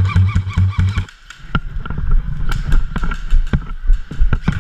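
Airsoft gunfire in a close-quarters game: a rapid-fire burst for about the first second, then scattered sharp cracks and clicks of shots and impacts.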